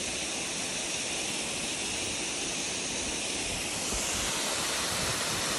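Steady rushing hiss of a waterfall, even and unbroken.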